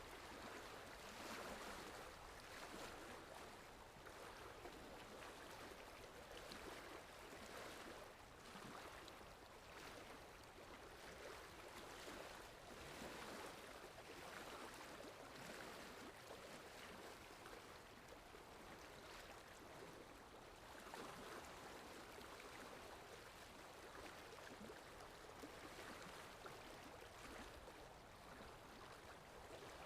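Sea waves washing, heard as a faint, steady wash that swells gently every few seconds.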